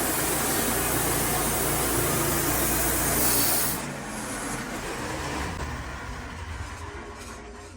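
Wood-Mizer LT40 Super band sawmill running with its blade cutting through a pine log. A little over three and a half seconds in, the loud cutting noise drops away and the mill runs on more quietly, fading toward the end.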